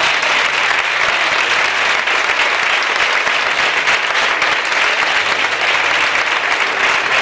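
Audience applauding, a dense, steady clapping from a crowd in a hall, greeting a candidate just named.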